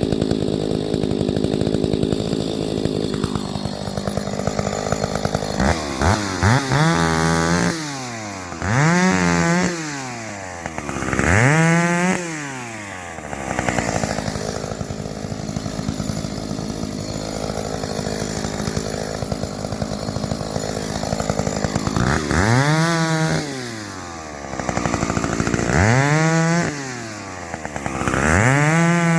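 Stihl 031AV two-stroke chainsaw running steadily, revved up to speed and back down about six times, in two groups of three.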